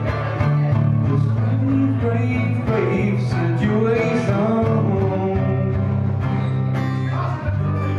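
Live reggae band playing the last bars of a song, a held bass line under guitar and other instruments.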